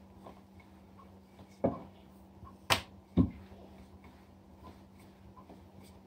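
Wooden rolling pin rolling out dough on a laminate countertop: soft rolling, broken by three sharp knocks of the pin on the counter, the first about a second and a half in and the last two close together around three seconds in.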